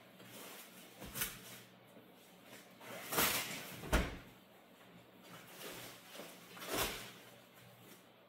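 Plastic wrapping being pulled off and rustled from a cabinet face frame, with a few swishes and a knock as the wooden frame is handled about four seconds in.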